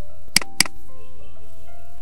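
Soft background music over a steady low hum, with a computer mouse double-clicking: two sharp clicks about a quarter second apart, about a third of a second in, opening a drive in the file explorer.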